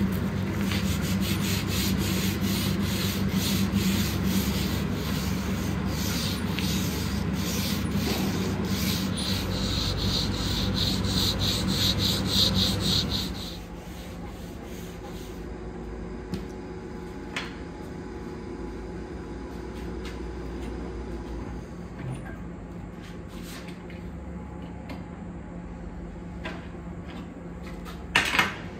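Sanding with a steady machine hum beneath it, in a run of short even strokes that stops about halfway through. After that a quieter hum remains with a few light clicks, and a short loud scrape comes near the end.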